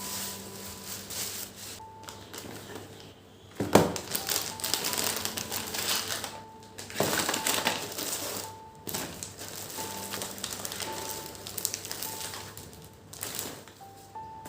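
Crinkling, crushing handling noises with a sharp knock about four seconds in, over soft background music.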